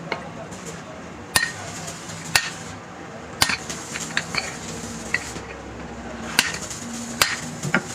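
Hammer striking steel parts, about five sharp blows spaced irregularly, with lighter metallic clinks between them and a brief ring after each.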